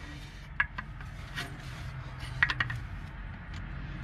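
A few light metallic clicks and scrapes from a hand tool levering a stuck transmission cooler line out of its fitting on an Allison 1000 transmission, spread out over a low steady hum.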